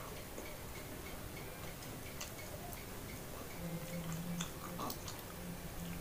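Quiet room with a faint low hum and a few faint, irregular small clicks.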